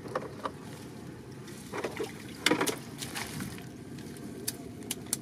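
Bamboo prawn trap knocking and clicking against a wooden boat as it is handled and emptied, in scattered irregular knocks with a cluster about halfway through, over light trickling of water in the boat's hold.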